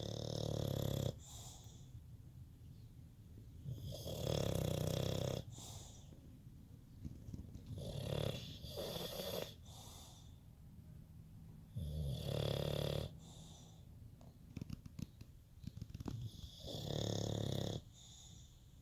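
Snoring in slow, regular rounds: about five loud snores, each a second or so long and roughly four seconds apart, with quieter breathing in between.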